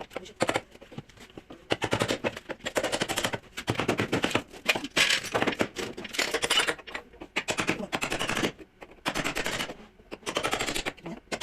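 Pneumatic air tool rattling in repeated short bursts of rapid impacts, as used in auto body panel repair.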